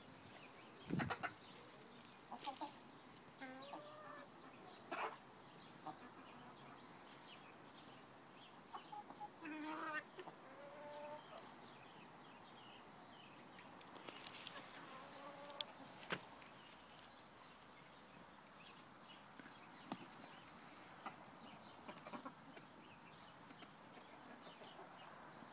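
A flock of domestic chickens clucking on and off in short, scattered calls, with a few sharp taps among them.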